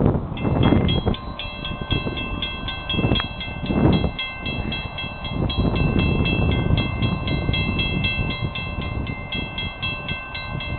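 Railroad grade-crossing warning bells ringing rapidly and evenly, about three strokes a second, as the crossing gates lower for an approaching train. A rough low rumble of wind on the microphone runs underneath.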